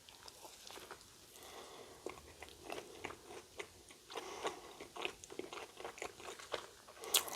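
Close-up chewing of a battered Korean corn dog: quiet, irregular crunches and wet mouth clicks as the crisp coating is bitten and chewed.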